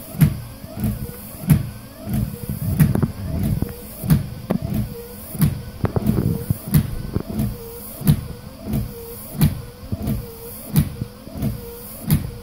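Car windshield wipers running fast across a dry windshield, the rubber blades squeaking as they drag. The strokes come about every two-thirds of a second, each squeak rising and falling in pitch, with a click at the turns and the wiper motor humming underneath.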